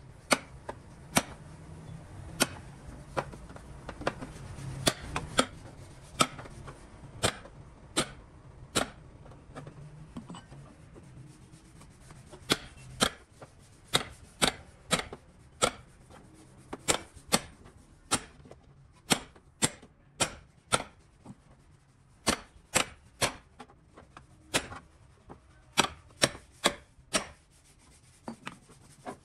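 Sharp, irregular taps of a hand tool on the car body, about one or two a second with a short pause midway, over a faint steady low hum.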